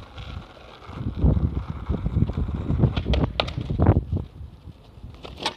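Skateboard wheels rolling over asphalt with a low rumble, then several sharp clacks of the board hitting the road around a trick attempt, with another clack near the end. Light wind on the microphone.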